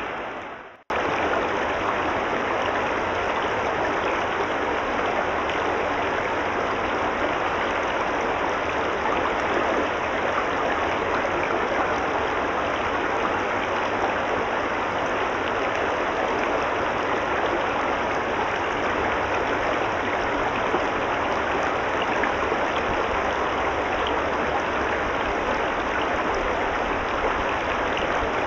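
Steady rush of a shallow, rocky trout stream running over a riffle. It cuts out briefly less than a second in, then resumes.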